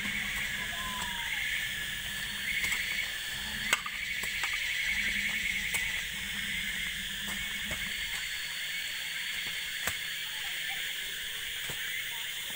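Steady high-pitched droning of forest insects over the low rumble of a Toyota hardtop's petrol engine, which drops away about eight seconds in; a couple of sharp clicks.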